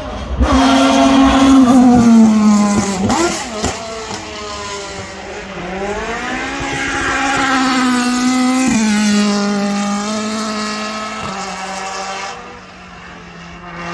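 Race-prepared drift car engine revving hard at high rpm as it drifts up the hill. Its pitch sags about three seconds in, climbs again, drops sharply about nine seconds in, then holds steady.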